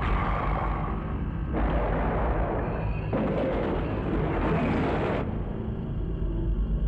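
Film trailer soundtrack of deep rumbling and booming, with rushing noise layered over it that switches abruptly every second or two.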